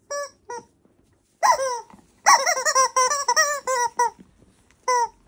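Squeaky rubber chicken toy squeaked under a cockatoo's beak and feet, honking squeaks that waver in pitch: a few single squeaks, a longer one, then a fast run of squeaks for about two seconds, and one more near the end.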